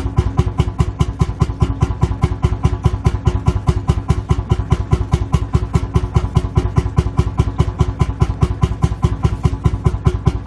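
Lanz Bulldog tractor's single-cylinder two-stroke hot-bulb engine idling, giving an even, steady chug of about five beats a second.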